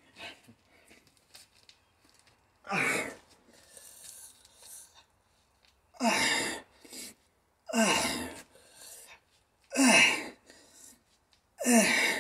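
A man's short, forceful exhalations with a grunt as he strains through dumbbell lateral raises, five of them, one per rep, about two seconds apart.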